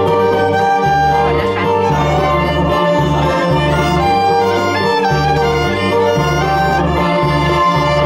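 Karaoke backing track playing: instrumental music with held melody notes over a rhythmic bass line.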